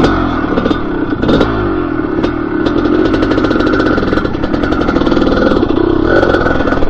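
Dirt bike engine running while being ridden. The revs rise and fall in the first second or so, then hold steadier, with rattling clicks throughout.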